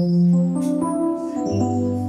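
Yamaha electronic keyboard playing slow, held chords, moving to a new chord with a lower bass note about one and a half seconds in.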